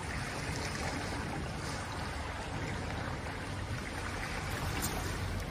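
Adriatic sea water washing gently against a rocky shore, a steady, even rush and trickle of small waves.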